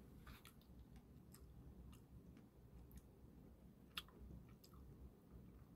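Near silence with a few faint, scattered clicks close to the microphone, the loudest about four seconds in: quiet mouth sounds of eating mint chocolate ice cream.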